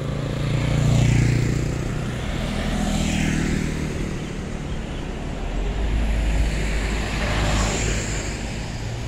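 Small motorcycles passing close one after another, each engine note falling in pitch as it goes by. The loudest pass comes about a second in. Another vehicle passes with a deeper, lower sound from about six to eight seconds in.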